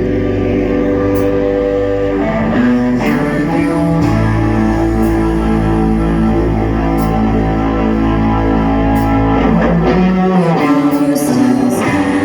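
Rock band playing, with held guitar chords that change every few seconds over a bass line. The bass drops out about ten seconds in.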